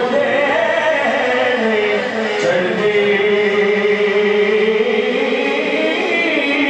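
A man singing a naat through a microphone. He draws out one long note for several seconds in the middle of the phrase, with ornamented pitch bends before and after it.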